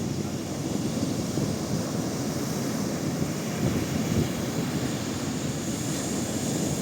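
Steady low rumble of wind on the microphone together with sea waves, with no distinct bird calls standing out.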